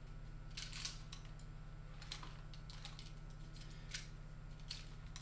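Light, scattered clicks and taps of a revolver being spun in the hand and slipped into and out of a belt holster, over a steady low hum.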